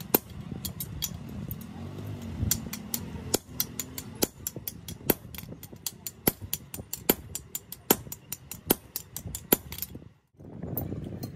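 Hammer blows on an axe head of truck leaf spring steel held on a steel anvil: sharp metallic strikes, a heavier blow about every second with lighter taps in between. The sound cuts out briefly near the end.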